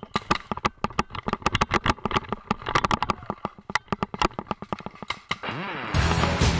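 Paintball markers firing, a rapid, irregular string of sharp pops. Near the end a short swoosh leads into music.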